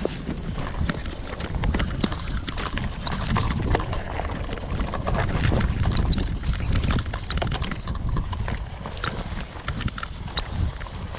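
Mountain bike rolling down a rocky trail: tyres crunching over loose stones and the bike clattering in quick, irregular knocks over a steady low rumble.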